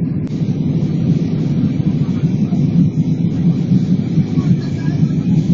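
Steady, loud rumble of an airliner's jet engines and airflow heard from inside the passenger cabin in flight.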